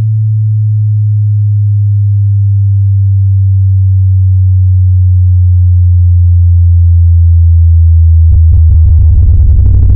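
Synthesized subwoofer test tone: one steady, very deep bass tone that slowly grows louder. About eight seconds in, it breaks into a fast pulsing bass beat.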